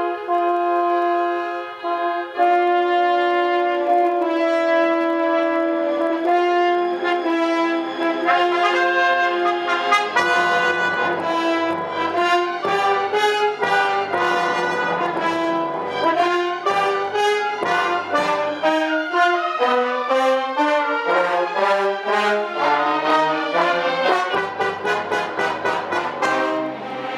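Orchestra playing, the brass section prominent: long sustained chords for the first several seconds, then a quicker passage of many short notes from about ten seconds in.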